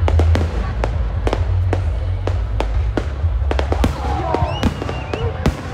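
Aerial fireworks bursting overhead: a rapid, irregular run of sharp bangs and crackles over a deep rumble.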